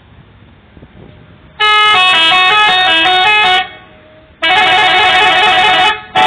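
Multi-tone telolet horn on a PO Efisiensi bus playing its tune: a run of stepping notes about a second and a half in, lasting two seconds, then a denser chord-like blast for about a second and a half, and a short blast starting right at the end.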